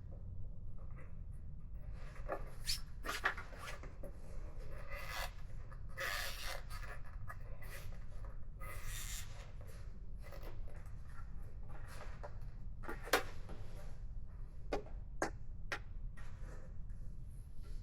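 Hands working a small rubber grommet into a motorcycle windshield's bolt hole: irregular rubbing and scraping with scattered light clicks, over a steady low hum.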